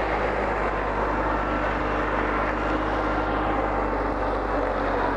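Heavy engine running steadily, a constant low hum under a broad mechanical noise.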